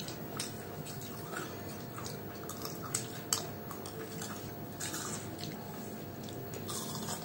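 People chewing and biting fried snacks, cauliflower pakoras and fried chickpeas, with scattered small crunches and clicks over a faint steady hum.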